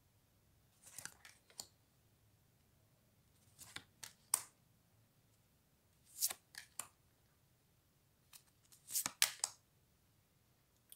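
Large oracle cards being slid one at a time from the front of a handheld deck to the back: short crisp papery swishes and snaps. They come in small clusters about every two seconds, five times in all.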